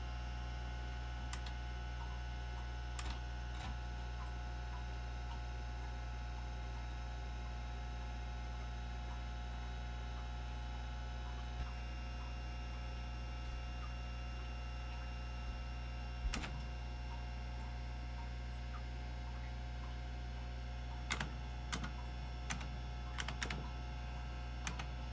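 Steady hum of a running IBM AT computer, with a few scattered keyboard key presses, then a quick run of keystrokes near the end as a short command is typed at the DOS prompt.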